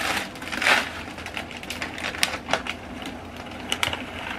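Crinkly plastic rustling and crackling in quick irregular bursts as a hanging moisture-absorber bag is unwrapped and handled.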